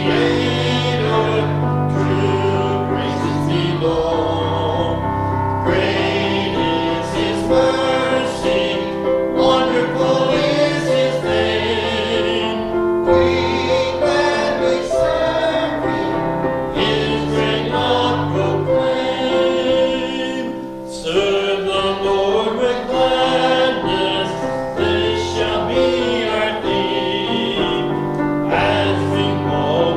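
A church congregation singing a hymn together, men's and women's voices, with instrumental accompaniment.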